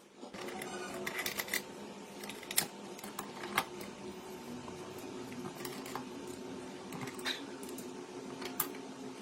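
Scattered light clicks and taps, as of hand tools and small metal parts being handled, over a steady low hum.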